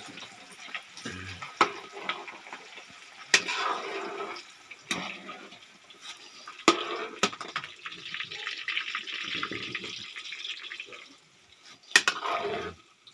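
Water running and splashing, broken by several sharp metal clanks of a cooking pot and utensils.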